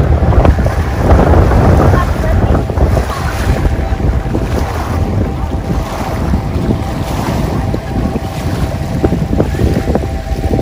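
Strong wind buffeting the microphone outdoors: a loud, low rumble that swells and eases in gusts.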